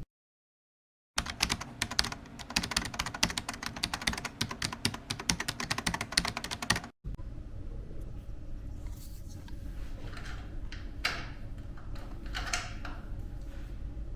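A rapid, dense run of small sharp clicks for about six seconds that stops abruptly, followed by quieter handling noise with a few light knocks.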